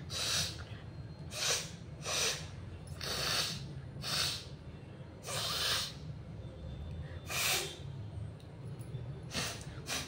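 A woman sniffing and snorting sharply through her nose, about eight short noisy breaths spaced a second or two apart, as she tries to provoke a sneeze by tickling her nostrils with a twisted paper strip; no full sneeze comes.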